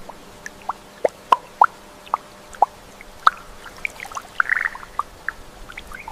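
Water drops plopping irregularly into shallow standing water, about a dozen separate drips over a faint steady hiss.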